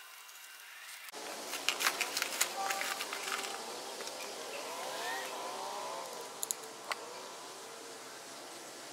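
Hands handling small electronic parts and pieces on a painted pipe prop: a flurry of sharp clicks and taps, then a few more isolated clicks over a low steady outdoor background.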